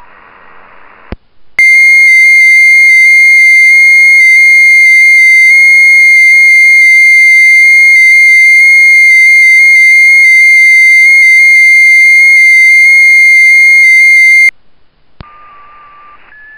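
FT8 transmission from WSJT-X: one loud, nearly steady tone near 2 kHz that steps very slightly in pitch, lasting about 13 seconds and starting and ending with a click. Before and after it comes receiver hiss, and near the end several faint steady tones of other FT8 signals.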